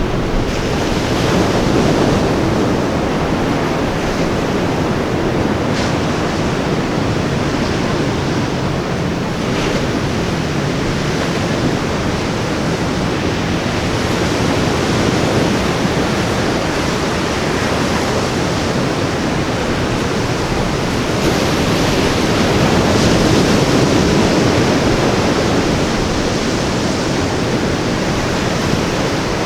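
Ocean surf washing onto a beach: a steady rush of breaking waves that swells a little near the start and again past the middle.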